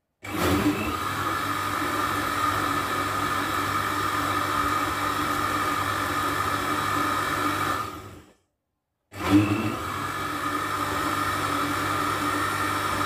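Electric countertop blender running, its motor humming steadily as it blends a strawberry milkshake. It cuts out about eight seconds in and starts again under a second later.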